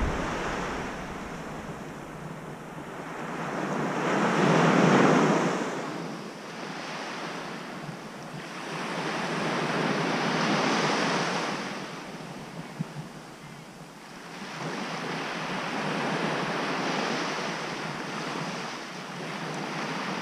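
Small waves breaking and washing up a sandy beach, the surf swelling and fading about every six seconds.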